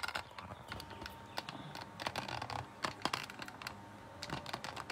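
Handling noise of a phone camera being taken down and re-aimed at a work table: a run of irregular small clicks and knocks with some rubbing.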